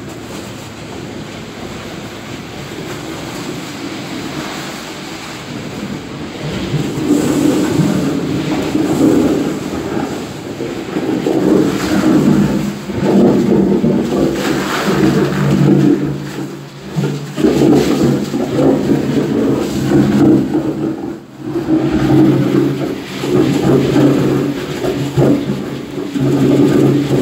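Loud engine drone from a screed pump, with surging rushes of sand-cement mix arriving. The rushes build up about a third of the way in and come in pulses with brief dips.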